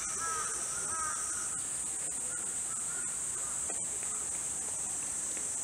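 A steady high-pitched chorus of insects, with a crow cawing a few times in the first second or so and fainter calls later on.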